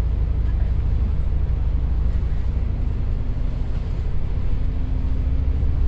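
A KMB double-decker bus on the move, heard from the upper deck: a steady low engine and road rumble. A level drivetrain hum comes in about two and a half seconds in.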